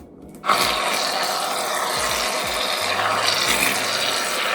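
Aerosol shaving cream can spraying foam in one steady hiss of about four seconds, starting about half a second in and cutting off sharply near the end.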